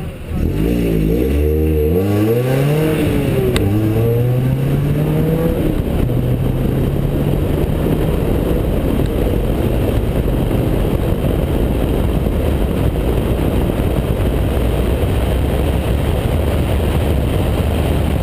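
Mazda MX-5 Cup race car's four-cylinder engine accelerating hard through the gears, its pitch climbing and then dropping at upshifts about two and six seconds in. After that it runs steadily at speed under a rush of wind and road noise in the open car.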